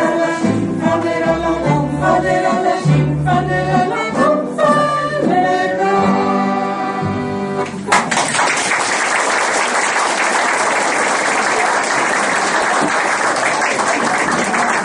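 A small folk band of accordion, double bass and guitar with a group of singers finishes a song, stopping abruptly about eight seconds in. Audience applause follows steadily.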